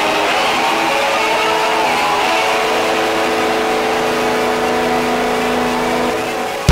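Noisy drone interlude within a song: a hiss-like wash with sliding pitches that settle into several steady held tones, dipping slightly near the end.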